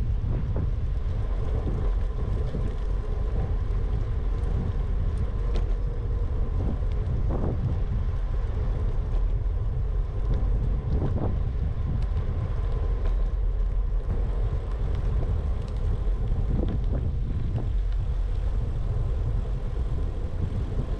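Wind rumbling on the microphone of a bicycle-mounted GoPro action camera while riding, with a faint steady hum underneath and a couple of brief knocks in the middle.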